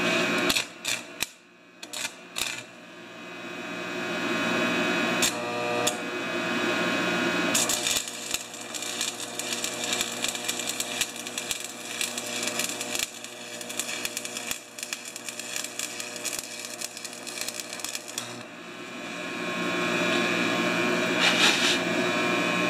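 Stick (arc) welding on the mower's steel axle bracket: a few short crackles as the arc is struck in the first couple of seconds, then the arc crackling and sputtering steadily for about ten seconds as the rod burns in, over a steady electrical hum.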